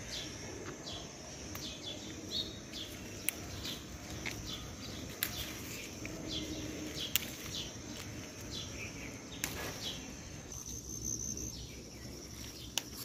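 Garden ambience: small birds chirping on and off over a steady high insect trill, with a few sharp clicks.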